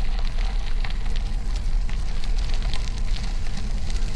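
Bicycle tyres crunching and crackling over loose gravel, over a steady low rumble of wind on the microphone.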